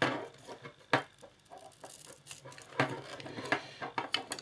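A small screwdriver and hands working on a Marantz Umpire USB microphone's opened casing: several sharp clicks and knocks, the loudest at the very start and about a second in, with scraping and rustling between.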